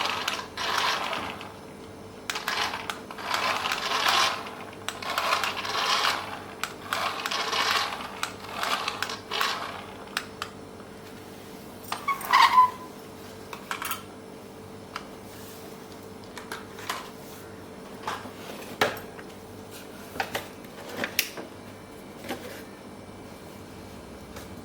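Handling noise: a run of short rustling scrapes about once a second, then one louder clatter with a brief ring and scattered light clicks and taps.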